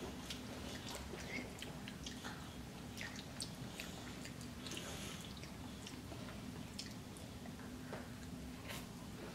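Children chewing chicken nuggets: faint scattered mouth clicks and smacks over a low steady hum.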